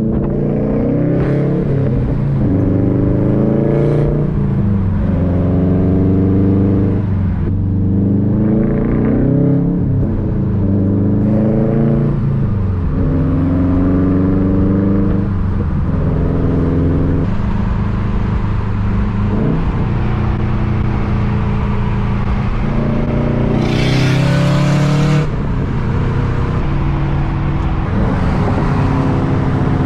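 Subaru WRX STI's turbocharged flat-four with its boxer rumble, accelerating through the gears. The pitch climbs and drops back at each shift several times, then the engine settles to a steadier drone. About 24 seconds in there is a loud hiss lasting a second or so.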